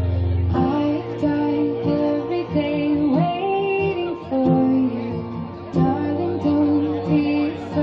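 A song with a woman singing over plucked guitar.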